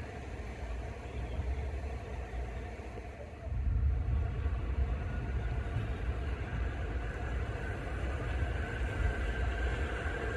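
A New York City subway train approaching from a distance, a steady low rumble that jumps louder about three and a half seconds in and builds toward the end.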